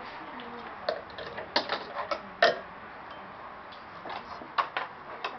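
Fingerboard clacking on a wooden fingerboard park: irregular sharp clicks as the miniature board's deck and wheels strike the ramps and ledge, the loudest about halfway through, with another run of clicks near the end.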